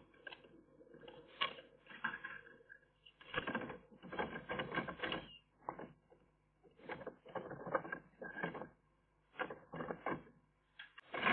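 Eurasian magpies at their stick nest: irregular bursts of dry crackling and rattling, several clusters a second or two long with short pauses between them, and the loudest burst near the end.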